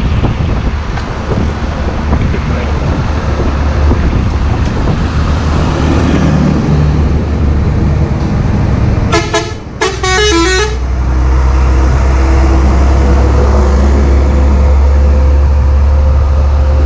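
Heavy trucks running past on a highway with a steady low engine and road rumble. A little past halfway a horn gives a short toot, then a longer blast of several quickly changing notes, and a deep rumble of a big vehicle passing close follows.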